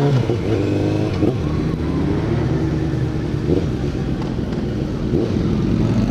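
Suzuki GSX650F inline-four motorcycle engine pulling away at low speed, its pitch rising briefly about half a second in, then settling to a steady low-revving run.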